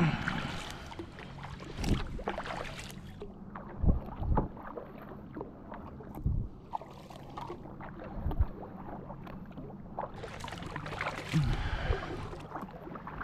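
Kayak being paddled: water splashing from the paddle strokes, with irregular dull knocks now and then. The heaviest splashing comes at the start and again near the end.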